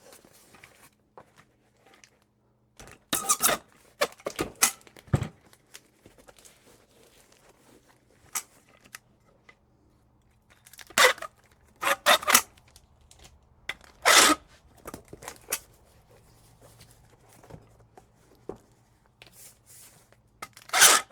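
Packing tape being pulled off the roll in several short tearing bursts while a parcel is sealed, with some crinkling and handling noise between.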